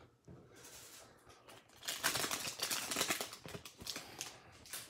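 Foil wrapper of a baseball card pack crinkling and crackling as it is torn open and the cards are pulled out. It is faint at first and gets busier about two seconds in.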